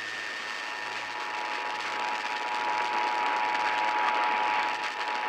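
Emergency Alert System attention signal, the steady two-tone alert (853 Hz and 960 Hz), received weakly on AM radio under hiss and static. It grows a little louder about two seconds in.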